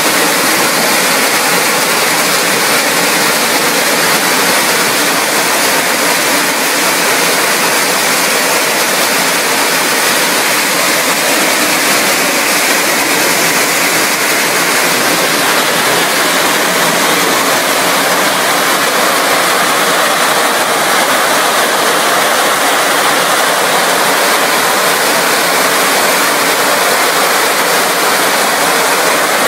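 PET bottle label-removing machine running with its high-pressure water jets: a loud, steady rush of spraying and pouring water.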